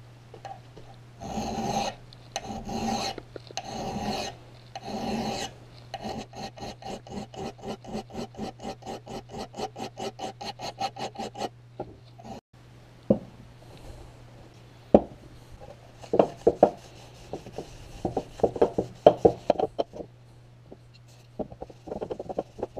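Hand file drawn across the steel edge of a hatchet head held in a vise, sharpening the blade: four long, slow strokes, then a quick run of short strokes at about four a second. After a break in the middle come scattered knocks and clatter of small items being handled on a workbench.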